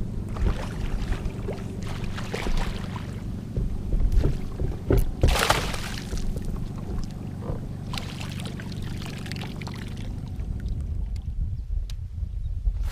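Kayak on the water: a steady low rumble with several short splashing swishes, the loudest about five and a half seconds in.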